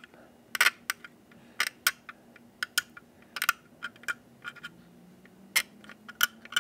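A pointed metal pick scratching and nicking the painted plastic side of a model freight car, cutting through the paint for a weathered look. It makes about fifteen short, sharp scratches and clicks at uneven intervals.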